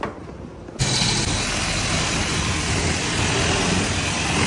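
Self-serve car wash spray switching on about a second in: a sudden, steady hiss of pressurized water with a low rumble underneath.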